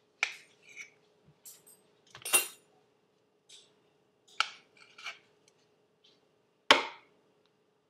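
A small knife clinking and scraping against a small plate as roasted garlic is scraped off it: a handful of separate clicks and scrapes, two of them sharper and louder, over a faint steady hum.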